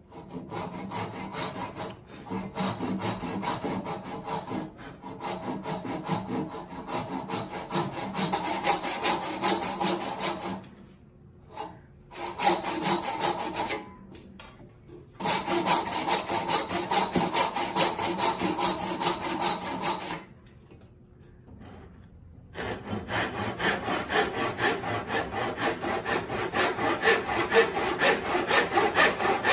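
Backsaw cutting wood by hand in runs of quick back-and-forth strokes, pausing briefly about a third of the way in, around halfway, and again about two-thirds through.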